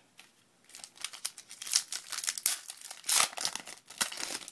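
Trading-card pack wrapper crinkling as it is handled and opened, a dense run of crackling that starts about a second in.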